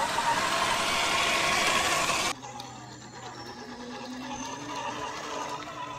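Electric motor and gearbox of an RGT Intruder RC crawler truck whining as it drives, the pitch wavering with the throttle. For the first two seconds a loud even hiss lies over it, then cuts off suddenly.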